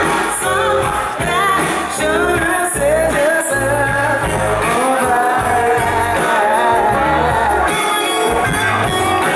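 Live band playing: electric guitars, bass and drums, with a lead singer's wavering vocal line over a steady beat, heard from the audience.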